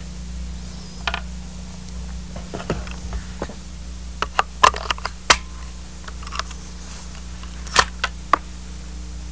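Scattered sharp metallic clicks of a scoped .22 rifle being loaded with a .22 Long Rifle cartridge and its action worked by hand, the loudest clicks about halfway through and near the end. A steady low hum runs underneath.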